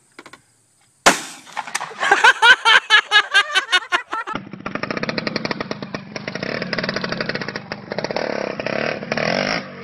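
A shotgun fires with a sudden loud bang about a second in, followed by about three seconds of loud yelling. Then a dirt bike's engine runs hard with a rapid, steady buzz.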